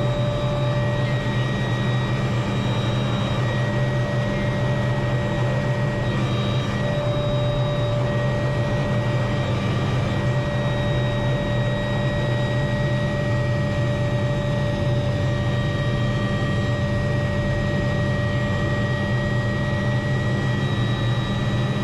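Helicopter in flight heard from inside the cabin: a steady rotor whine with several high held tones over a low drone, unchanging in level.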